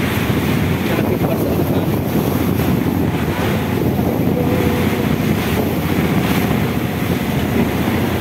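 Wind buffeting the microphone aboard a fishing boat underway in choppy sea, a steady dense rumble with waves washing around the hull.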